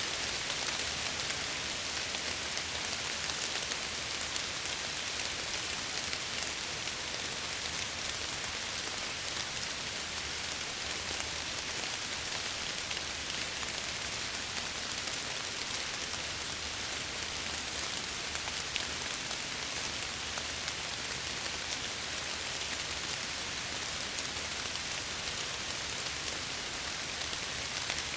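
Steady rain falling and pattering against window glass, an even hiss with fine scattered drop taps and no let-up.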